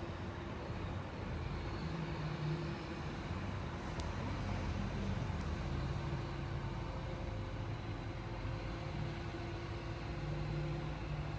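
Steady low engine drone of heavy motor vehicles or machinery, its pitch shifting slightly now and then, with one sharp click about four seconds in.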